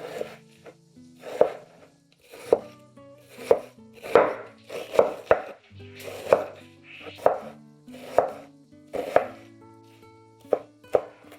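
Knife chopping food on a cutting board: about a dozen separate cuts, roughly one a second, some closer together near the middle. Soft background music plays underneath.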